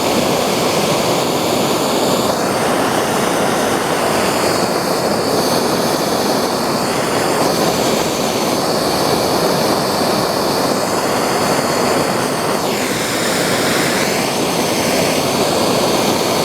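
Gas soldering torch burning with a steady rushing noise as it heats the fuel tank's drain bung washer, bringing the work hot enough to melt the solder.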